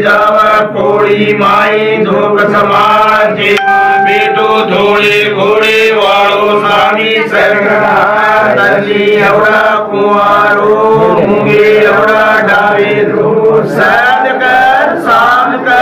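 Men's voices chanting a ritual prayer in one continuous flow, loud and close.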